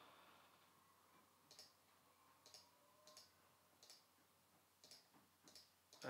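Faint computer mouse clicks, about six of them roughly a second apart, as on-screen Stream Deck emulator buttons are clicked to trigger clips.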